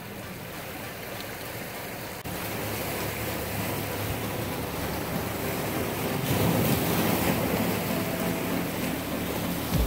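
Ocean surf washing against a rocky shore, with wind on the microphone; it gets louder after about two seconds.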